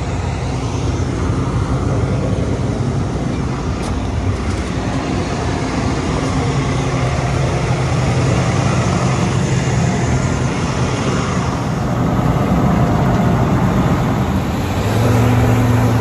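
Combine harvester running, its diesel engine a steady loud drone over a noisy churn of machinery. The hum changes a little about twelve seconds in and grows stronger near the end.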